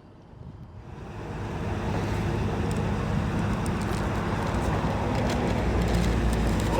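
An engine running steadily with a low hum, which grows louder over the first two seconds and then holds.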